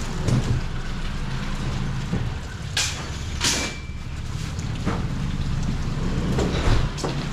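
Street ambience with a vehicle engine running steadily and two short hissing bursts about three seconds in.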